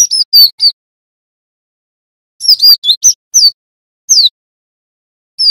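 Cinereous tit singing: quick clusters of short, high whistled notes, each sliding down in pitch, with pauses of a second or more between the clusters.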